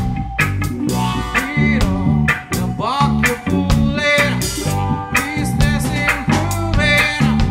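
Roots reggae band playing live: a bass line and drums under short chopped electric guitar strums in a steady rhythm, with a voice singing.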